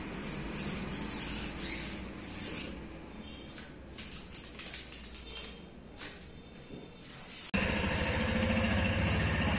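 Decal backing paper rustling and crinkling under hands as a sticker is pressed onto a motorcycle fuel tank and peeled, with a few light clicks. About three-quarters of the way through it gives way suddenly to a Bajaj Pulsar 150's single-cylinder engine running steadily, much louder.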